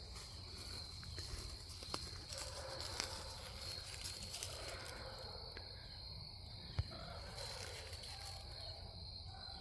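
Steady high-pitched trill of an evening insect chorus, with a few faint clicks and taps as a trail camera is handled.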